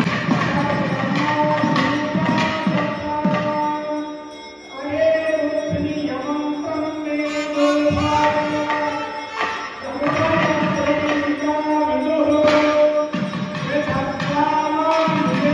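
Periya melam temple ensemble: nadaswaram melody over a steady drone, with several thavil drums beating fast strokes. The drumming thins out about four seconds in and comes back in full about ten seconds in.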